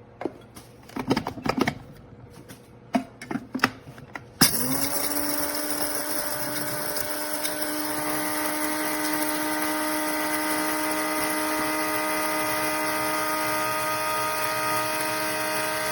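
Scattered clicks and knocks of a small appliance being handled, then the SHARDOR electric coffee and spice grinder's motor switches on about four seconds in, spins up quickly and runs with a steady whine.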